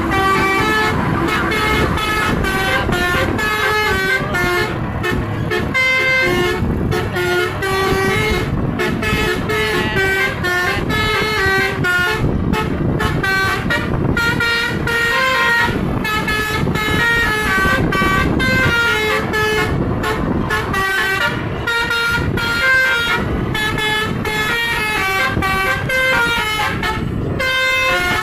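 Telolet multi-tone musical air horn on a Scania container truck playing a long, fast tune of short stepped notes, over the rumble of the truck's engine.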